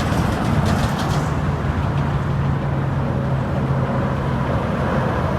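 Interstate traffic with semi trucks driving past: steady tyre and engine noise, with a low diesel drone holding through the middle. No horn sounds.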